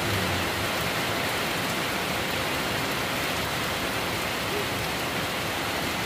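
Heavy rain falling steadily onto wet, flooded paving: an even, unbroken hiss of rain.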